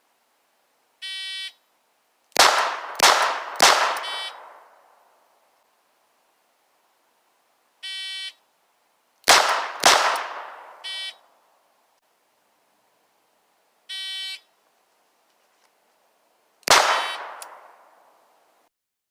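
Snub-nosed revolver fired on a shot-timer start beep in three strings. The first beep is followed by three quick shots about half a second apart, the second by two shots, and the third by a single shot.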